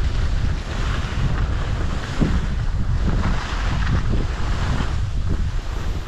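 Wind buffeting the microphone: an uneven, gusting low rumble over a steady hiss.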